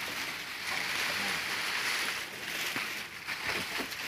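Rustling hiss of dry leaves and cardboard egg trays being handled inside a wooden cricket-rearing box, with a few light knocks in the second half.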